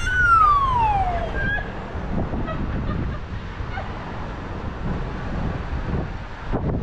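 Low rumble of wind and road noise on a motorcycle rider's camera microphone. At the start comes a loud high tone that slides down in pitch for about a second.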